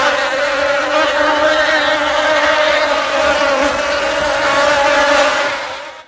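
Honeybees buzzing together in a steady, dense drone that fades out near the end.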